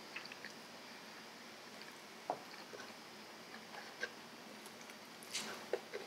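Faint eating sounds: quiet chewing and a few small clicks and scrapes of a metal fork cutting into a stack of pancakes, the loudest near the end.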